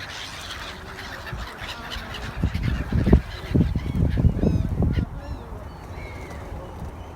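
Gulls and pigeons calling, short high calls over a steady background. A stretch of loud low thumping and buffeting runs from about two and a half to five seconds in.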